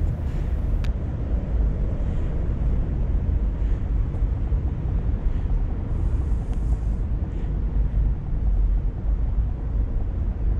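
Steady low rumble of city traffic in the distance, with no single vehicle standing out.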